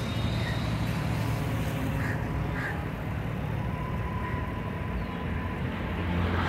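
Road traffic: a steady low rumble of vehicle engines, with a few short high-pitched blips about two seconds in and a held tone around the middle.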